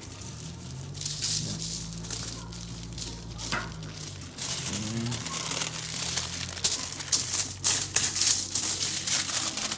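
Aluminium tin foil crinkling and rustling as it is handled and folded around a fish fillet, with more crackle from about halfway on.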